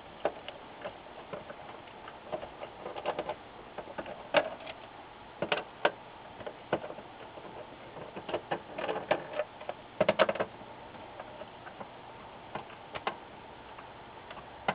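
Hand screwdriver backing screws out of the plastic back case of an LG L196WTQ-BF LCD monitor: scattered small clicks and short scraping ticks, in brief clusters about four seconds in and about ten seconds in.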